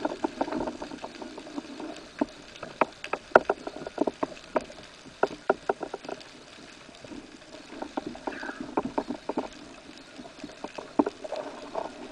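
Underwater sound picked up through a camera housing: irregular sharp clicks and taps in clusters over a low hiss of water, with a soft murmur at the start and near the end.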